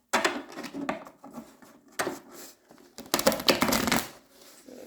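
Tarot cards being shuffled by hand in bursts of dense flicking: one right at the start, a short one in the middle, and the loudest and longest about three seconds in.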